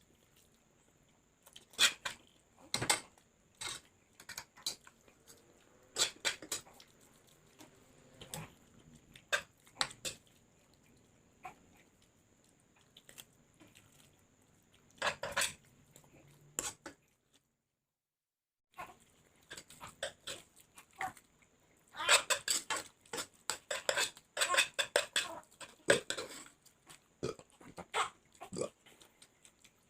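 Close-up eating of instant fried noodles: chewing, lip-smacking and slurping in irregular bursts, with clinks of a utensil on a plate. There is a faint steady high whine underneath, and a short gap of dead silence a little past the middle.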